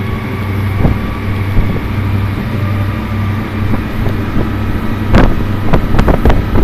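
Passenger boat's engine droning steadily under way. From about five seconds in, a flurry of sharp knocks cuts through the drone.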